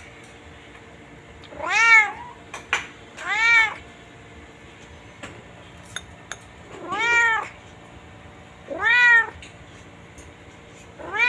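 Domestic cat meowing over and over, five meows a second and a half to four seconds apart, each rising then falling in pitch.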